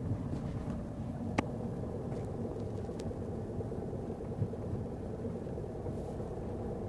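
Car engine running and road rumble heard from inside the cabin while driving, steady, with no knock standing out. One sharp click comes about a second and a half in, and a faint tick a second and a half later.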